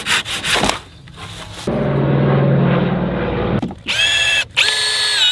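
A handsaw finishes a few strokes through a framing board. Then a cordless drill drives screws into the wooden floor frame: one steady, lower-pitched run of about two seconds, followed by two short, high-pitched whirs near the end.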